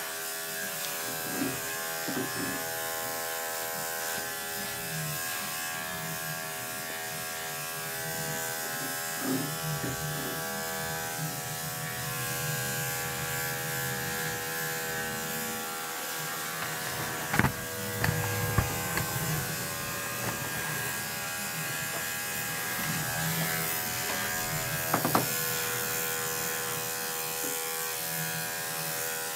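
Electric dog-grooming clipper running with a steady motor hum as it clips a small dog's coat. A few sharp knocks come about halfway through and again near the end.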